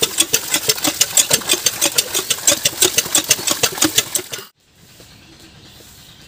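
Cast-iron hand pump worked briskly, its handle and plunger clanking in a fast, steady rhythm. The sound cuts off abruptly about four and a half seconds in, leaving only a faint outdoor background.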